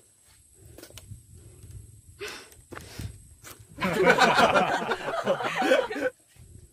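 A woman bursting into laughter for about two seconds, starting near the middle, after a few soft knocks and rustles.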